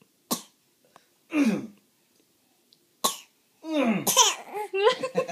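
A baby's pretend coughs: three short, forced coughs a second or two apart, the second sliding down in pitch. Laughing and babbling follow for a second and a half near the end.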